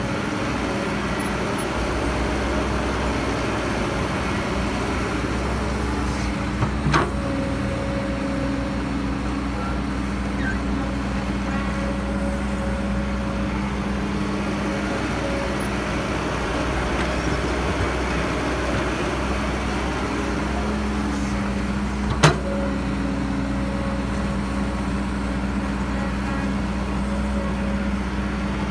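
Diesel engine of a Caterpillar E315B hydraulic excavator running steadily under load while digging, its pitch shifting slightly now and then. Two sharp knocks cut through, about seven seconds in and, louder, about twenty-two seconds in.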